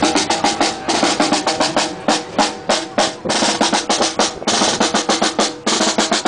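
Marching band: a snare drum playing a quick march beat with rolls, loudest throughout, with a bass drum and brass horns sounding under it.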